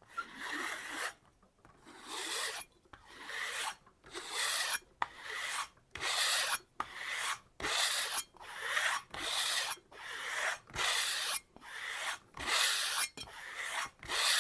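Knife edge drawn stroke after stroke along a hanging kangaroo-tail leather strop, about one stroke a second, each a rasping scrape that builds toward its end. The rasp comes from the rough ridges of the kangaroo-tail leather, which do not harm the edge; the stropping removes the root of the burr after sharpening.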